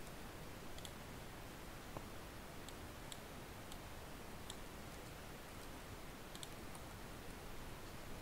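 Faint, scattered clicks of a computer mouse and keyboard, about ten in all, some in quick pairs, over a low steady room hiss.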